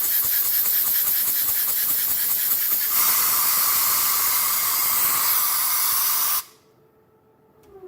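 Loud steady hissing from shop equipment, which grows stronger and harsher about three seconds in and cuts off abruptly about six and a half seconds in. A short falling tone follows near the end.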